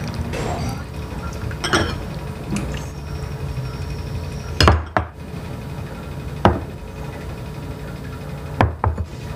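Metal ladle clinking against ceramic soup bowls and bowls knocked down onto the countertop while soup is ladled out: a few sharp clinks and knocks, the loudest about halfway through and two close together near the end.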